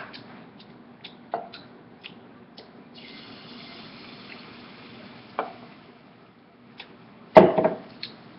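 Scattered clicks and knocks of kitchen handling, with a soft hiss for a few seconds in the middle and one louder thump near the end.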